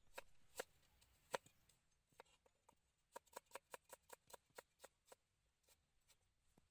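A knife chopping carrot on a round wooden chopping board: a few separate knocks at first, then a quick, even run of about a dozen chops, roughly five a second.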